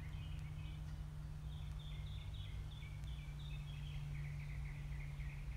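A songbird singing a long run of quick, short notes that step between two pitches and close in a faster trill, over a steady low hum.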